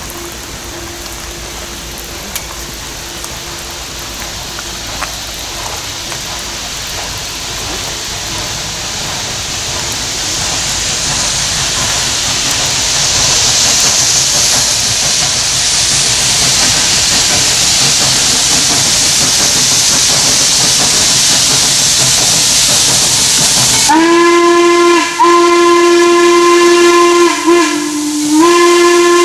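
Western Maryland Scenic Railroad No. 1309, a 2-6-6-2 articulated steam locomotive, approaching with a steady hiss that grows louder. Near the end its steam whistle blows, one long blast broken by a couple of brief gaps and a short dip in pitch.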